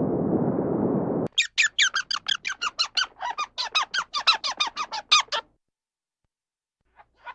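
A bird giving a fast run of sharp calls, about six a second, each one falling in pitch, for about four seconds. Before it, a low rushing noise cuts off suddenly about a second in.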